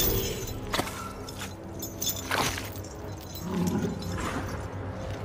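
Film fight-scene sound effects in a mud pit: a few scattered sudden knocks and thuds over a steady low rumble, with a brief low sound about three and a half seconds in.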